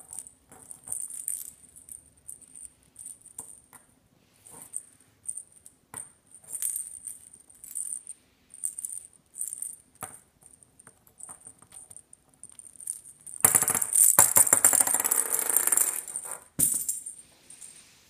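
Perforated plastic toy ball rattling and jingling in short, irregular bursts as a parrot pushes it with its beak across a hard countertop. About thirteen seconds in comes a much louder, continuous rattle lasting around three seconds.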